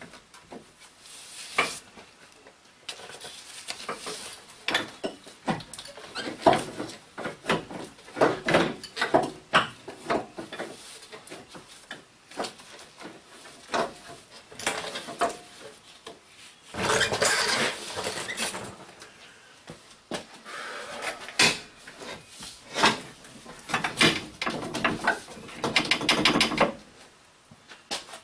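Metal transmission cooler lines clinking, knocking and scraping against the transmission and frame as they are worked into place by hand. There is a longer scraping rub a little past halfway.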